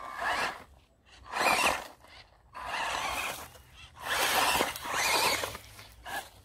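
Electric RC buggy's motor whining up in five short bursts of about half a second to a second each, the wheels spinning as the two-wheel-drive car struggles for grip in grass and sand.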